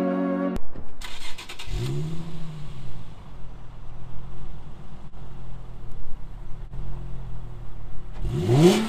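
2007 Infiniti G35 Sport's VQ35HR 3.5-litre V6 with stock exhaust, heard at the tailpipes: the engine cranks and catches about a second in, flares up and settles into a steady idle, then revs sharply once near the end and drops back.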